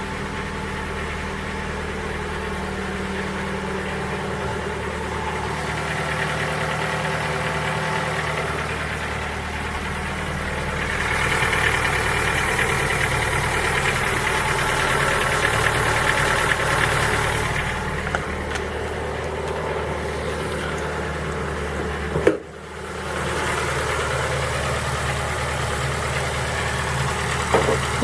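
Ford Focus 3's 1.6 Ti-VCT (PNDA) petrol engine idling from a cold start with a knock, which the owner puts down to the piston pins.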